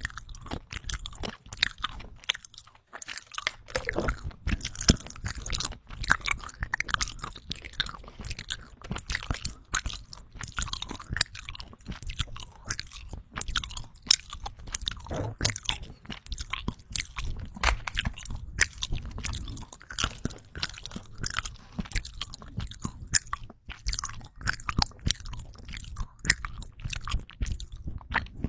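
Close-up ASMR chewing of vitamin gummy jellies: wet, sticky bites and chews with crisp clicks, going on without a break.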